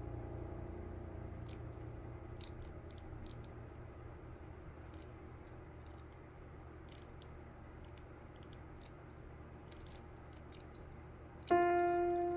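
Light, scattered clicks and taps from paper crafting at a desk, faint under the held notes of background music fading away. Piano music starts suddenly near the end.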